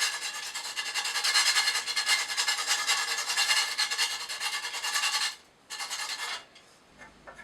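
Rough abrasive rubbing on timber, as in sanding or rasping wood, in rapid back-and-forth strokes. It cuts off about five seconds in, followed by one short burst.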